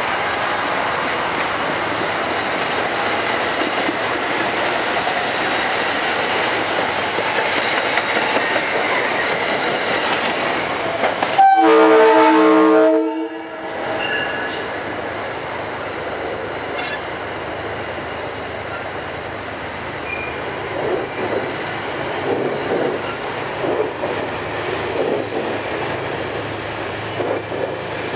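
Metro-North commuter trains running through the station, a steady rumble of wheels on rail. About eleven seconds in, a train horn blows a loud chord for about two seconds right by the platform. After it, coaches roll slowly past with a softer rumble and a few wheel clicks.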